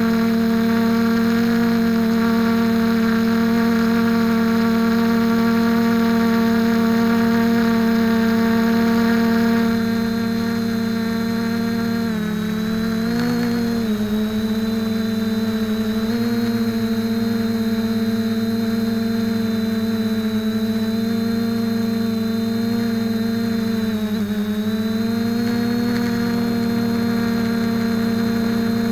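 A quadcopter's electric motors and propellers give a steady buzzing drone, heard close up from a camera mounted on the airframe. The pitch wavers and dips briefly twice, about twelve seconds in and again near twenty-four seconds.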